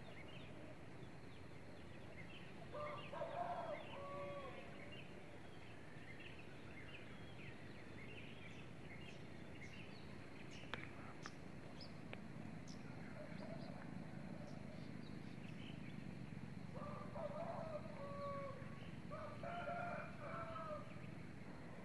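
Rooster crowing: one crow about three seconds in and two more near the end, each lasting a second or so. Small birds chirp in between, over a steady low background hum.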